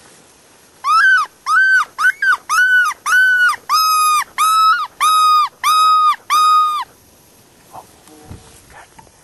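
Hand-blown coyote howler call sounding a run of about a dozen short, loud, high yelps, about two a second, the notes growing slightly longer and steadier in pitch as the run goes on.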